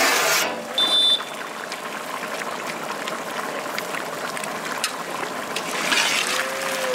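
Liquid curry being stirred with a metal ladle in a large aluminium cooking pot: the liquid sloshes and the ladle clicks against the pot. A short loud rush of noise comes at the very start, and a brief high tone about a second in.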